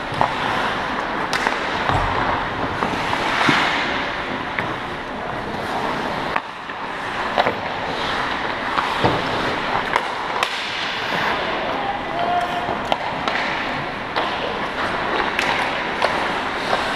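Ice hockey in play: skates scraping and carving on the ice, with sharp clacks of sticks and puck and a few thuds scattered throughout.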